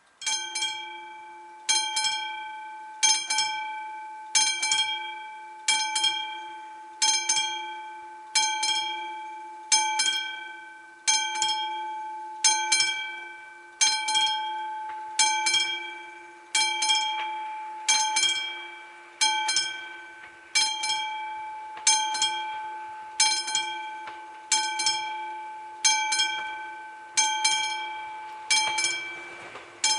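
Classic mechanical level-crossing warning bell ringing, struck about once every 1.3 seconds, each stroke ringing on and fading before the next. It starts suddenly as the crossing activates, warning that a train is approaching.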